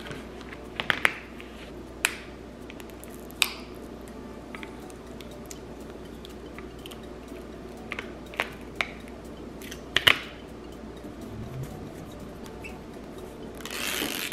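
Scattered light clicks and taps of a smartphone and a tempered-glass screen protector being handled on a tabletop, over a steady room hum, with a brief rustle near the end.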